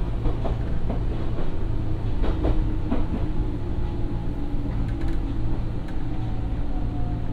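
Nankai 2200 series electric train running, heard from inside the car: a steady low rumble with wheels clicking over rail joints in the first few seconds. In the second half, a thin motor whine falls slowly in pitch.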